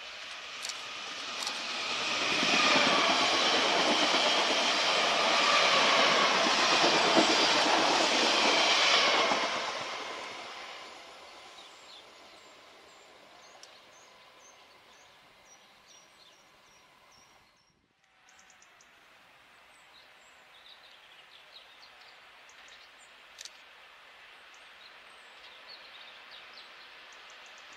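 Two coupled SNCF Z 27500 electric multiple units passing close at speed: a rush of wheels and running gear that builds, stays loud for several seconds with a high whine through it, then fades away. Later, faint, slowly growing sound of a TGV approaching in the distance.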